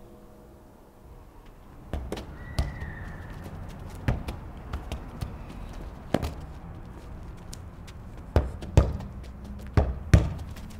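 Irregular knocks and taps, starting about two seconds in and louder near the end, with a brief high squeak about two and a half seconds in.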